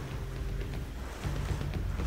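Storm wind and rain rushing outside a window, under background music; a little over a second in, a steady drumbeat comes in.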